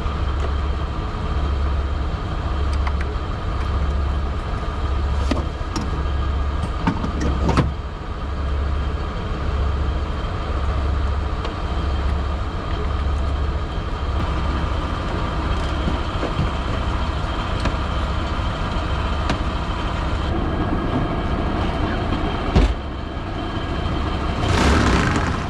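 A fire engine's engine running at idle, a steady hum with a low throb that pulses about once a second. A few knocks of equipment being handled and stowed in the truck's locker break through, the loudest about three seconds before the end.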